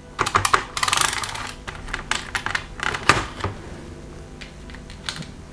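Small plastic keys of a Casio VL-1 mini keyboard being pressed, giving irregular clicks and taps, with a quick flurry of them about a second in.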